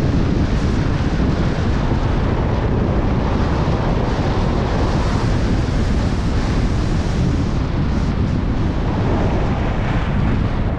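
Wind rushing and buffeting over the microphone of a skier's camera moving fast downhill at about 50–65 km/h: a loud, steady rumble with no let-up.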